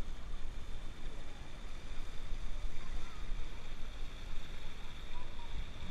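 Steady rushing and splashing of an outdoor thermal pool's water jets, with faint voices of bathers.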